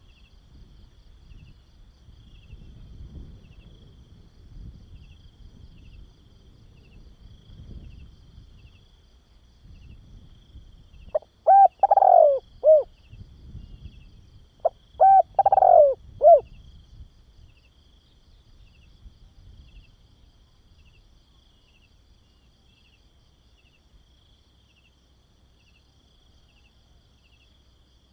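Spotted dove cooing: two multi-note call phrases, each about a second and a half long and a couple of seconds apart, about halfway through. A faint, steady, high-pitched insect trill runs underneath.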